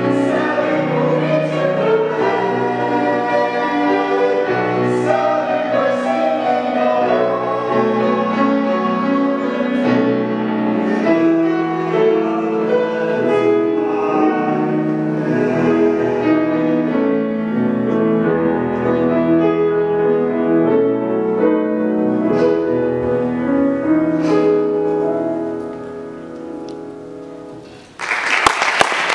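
A male and a female voice singing a musical-theatre duet together, accompanied by grand piano. The last note fades away near the end and the audience bursts into applause in the final second.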